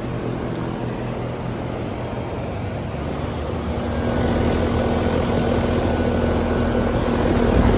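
Outdoor air-conditioner condensing units running: a steady mechanical hum of compressor and condenser fan. About four seconds in it grows louder, with a steady low hum joining.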